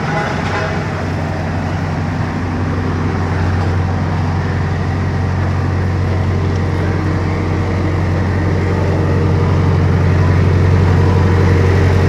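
Case road roller's diesel engine idling steadily with a low, even hum, growing louder toward the end, over passing street traffic.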